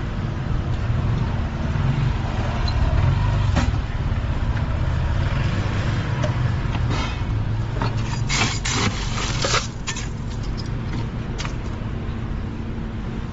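Steady low rumble of street traffic and engines. Over it, a sharp clink comes about a quarter of the way in, then a cluster of clinks and rattles in the middle, from glassware and ice being handled while a drink is made.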